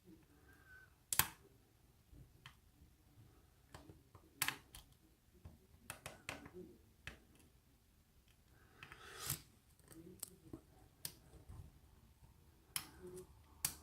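Hook pick and tension wrench working the pins of a pin-tumbler challenge lock: irregular sharp metallic clicks, a dozen or so, with a short scrape about nine seconds in.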